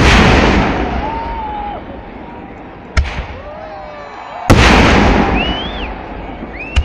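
Aerial firework shells exploding: four heavy booms about a second and a half to three seconds apart, each followed by a long rolling echo that fades away.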